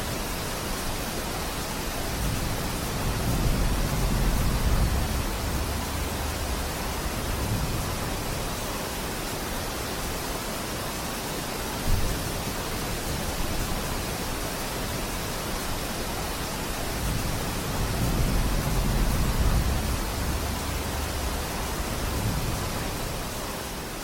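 Steady rain falling in a forest, an even hiss, with two slow swells of low rumble and a single short knock about halfway through. The sound begins to fade near the end.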